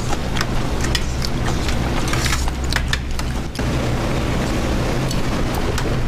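Steady low rumble of restaurant background noise, with scattered light clicks and clinks of a glass bottle and tableware during the first three seconds or so while soju is poured.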